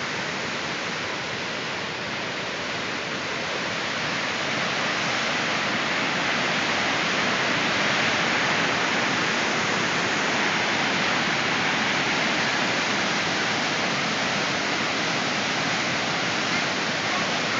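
Muddy floodwater pouring over a concrete weir in a flood control channel and churning in the whitewater below: a steady rush of water that grows a little louder a few seconds in.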